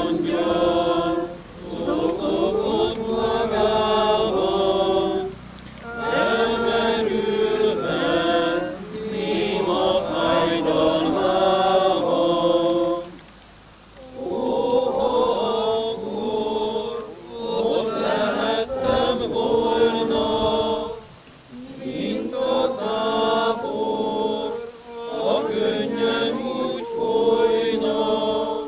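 A small group of voices singing a church hymn in phrases of several seconds, with short pauses between the phrases.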